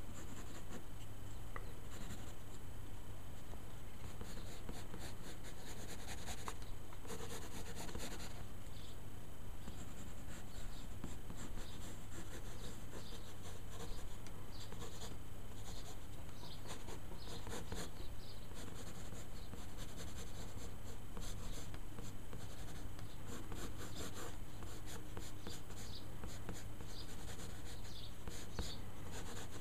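Wooden graphite pencil scratching across drawing paper in many short, irregular sketching strokes, over a steady low hum.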